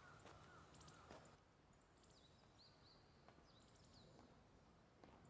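Near silence with faint bird chirps: a run of short, high, falling chirps starting about two seconds in.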